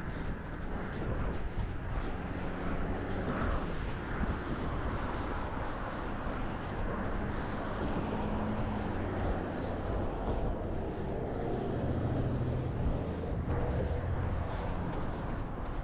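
Outdoor running sound picked up by a chest-mounted GoPro: steady wind rumble and footfalls, with a low engine hum from passing traffic in the second half.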